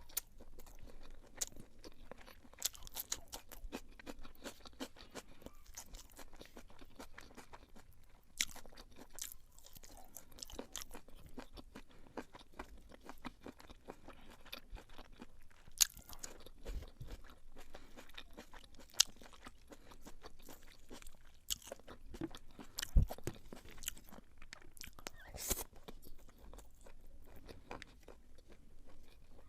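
Close-miked chewing of beef pilau (spiced rice with beef), with many small wet clicks and crunches and a few sharper, louder clicks.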